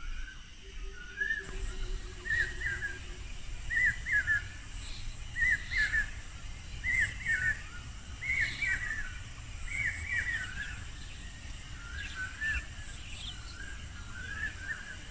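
A bird calling over and over, a short warbled call repeated about once a second, over a low rumble.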